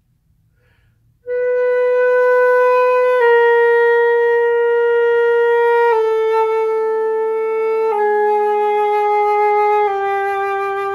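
Concert flute playing slow held notes that descend in semitone steps, a chromatic scale exercise. Five notes of about two seconds each, starting about a second in.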